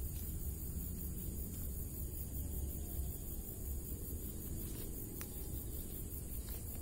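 Steady low rumble of outdoor ambience, with a single faint click about five seconds in.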